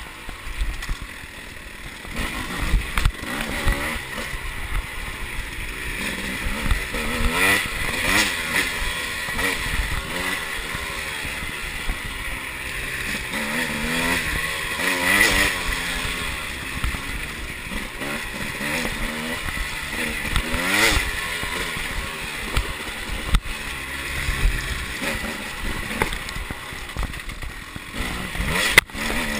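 300 cc two-stroke enduro dirt bike engine being ridden, revving up and falling off over and over as the throttle is opened and closed, heard close up from on the bike.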